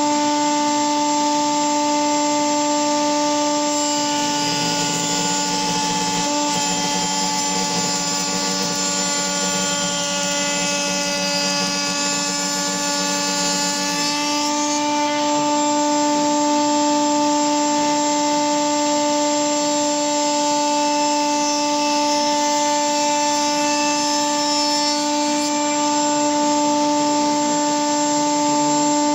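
Table-mounted router running at a steady high whine with a groove cutter. From about 4 s to 14 s the sound thickens as the cutter grooves a beech rail, then it runs free again.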